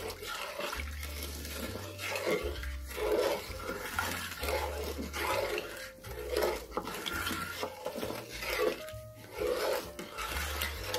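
Wooden spoon stirring a thin, warm coconut-cream mixture in an aluminium pot: liquid sloshing and swishing with each stroke, about once a second.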